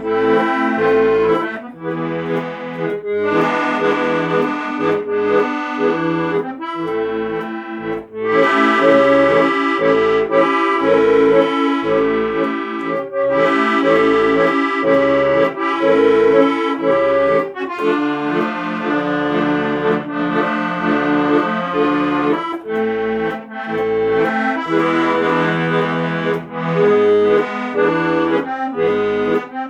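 Accordion music: a melody over short, regularly repeating bass notes and chords.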